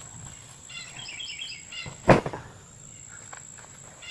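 One heavy thump about two seconds in, a box of books being set down. Before it, a bird chirps a quick series of short notes for about a second.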